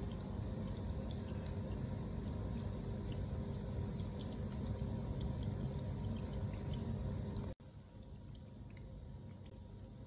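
Tabletop indoor water fountain running, water trickling down its ribbed wall into the basin with a steady splashing. About three-quarters of the way through the sound cuts off for an instant and then goes on quieter.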